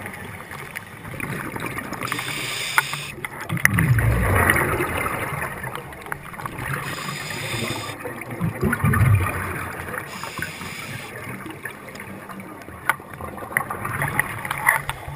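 Scuba diver's exhaled bubbles from the regulator, heard through a camera's underwater housing: two bubbling rumbles about five seconds apart, with a steady muffled hiss and small clicks between breaths.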